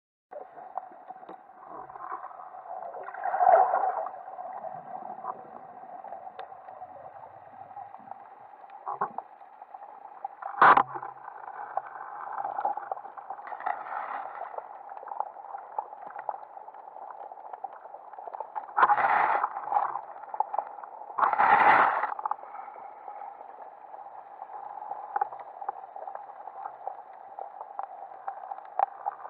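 Muffled underwater noise heard through a camera's waterproof housing: a steady dull hum of water, with louder rushes of water noise about 3, 11, 19 and 22 seconds in.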